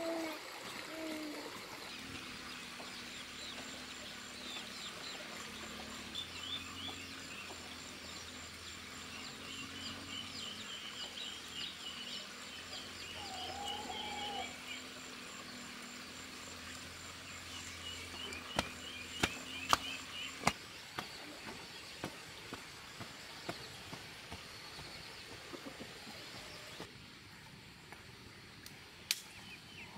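Rural outdoor ambience: short chirping trills repeating through much of it over a steady low hum, with a few sharp knocks about two-thirds of the way through.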